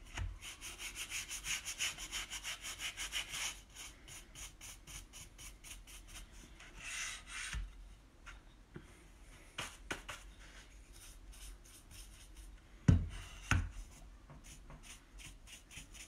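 Cheap old paintbrush brushing white paint onto a bare wooden board: scratchy back-and-forth strokes, about four a second at first, then more spaced. Two thumps about half a second apart near the end are the loudest sounds.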